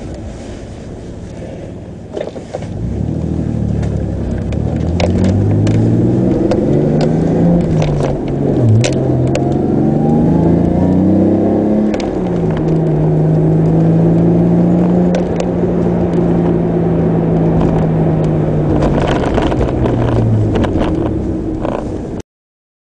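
Toyota Supra Turbo's twin-turbo inline-six revved through a Tanabe Medalion Concept G Blue stainless turbo-back exhaust. The engine rises from idle over several seconds, dips briefly about nine seconds in, then climbs to about 4,000 rpm. It holds there steadily for several seconds, falls back near the end and cuts off abruptly, with scattered crackles through the run.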